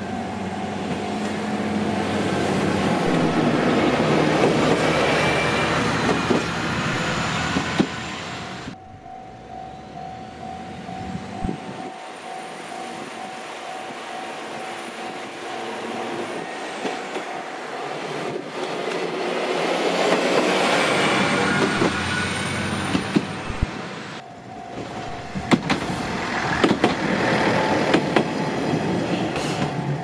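Diesel railcar passing over a level crossing: its engine running and wheels on the rails, swelling in loudness twice, with a run of sharp clicks over the rail joints near the end. The crossing's steady warning bell tone sounds at the start and again for the last few seconds.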